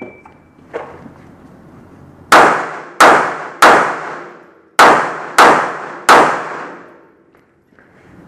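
Six pistol shots fired in two quick strings of three, about two shots a second within each string and just over a second between strings, each shot ringing away behind it.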